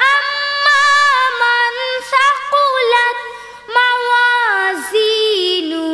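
A girl reciting the Quran in a melodic tajweed chant, holding long notes that waver in pitch, with short breaks between phrases; near the end a held note steps down in pitch.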